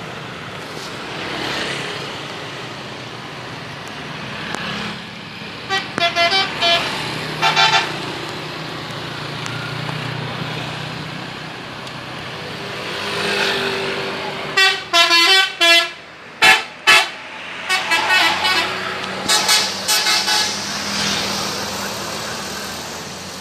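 Bus 'telolet' musical air horn sounding runs of short, changing-pitch notes: a few toots about six seconds in, then a longer string of notes in the second half, over the rumble of a bus engine and road traffic.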